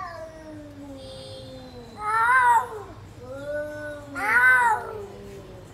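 Ginger cat howling. It gives a long, low call that slides downward, then two loud howls that rise and fall, about two seconds apart, with a softer one between them.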